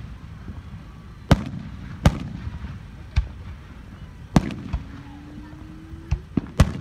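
Aerial firework shells bursting overhead: about seven sharp bangs at irregular intervals, three of them in quick succession near the end.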